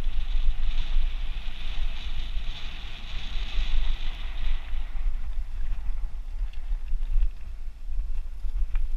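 Mountain bike riding fast down a dirt singletrack: a heavy rumble of wind buffeting the handlebar-mounted camera's microphone over the rolling noise of knobby tyres on dirt and bark litter, brighter and hissier for the first half, with a few small rattling knocks near the end.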